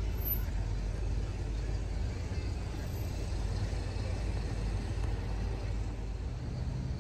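Car driving along: a steady low rumble of tyre and engine noise.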